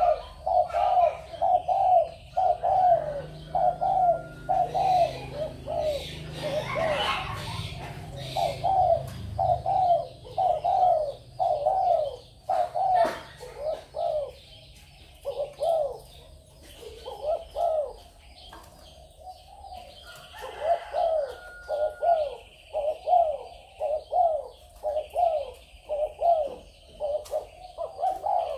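Spotted doves cooing: short hooked coos repeated in quick runs of about two to three a second, with a lull in the middle before the series picks up again.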